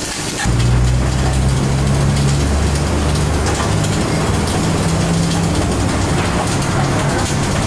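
MIG/MAG gas-shielded welding arcs crackling and hissing over a steady low machine hum; the hum comes in strongly about half a second in.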